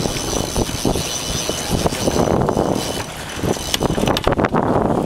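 Wind rushing and buffeting across the microphone over choppy water, with irregular knocks and slaps throughout, more of them in the second half.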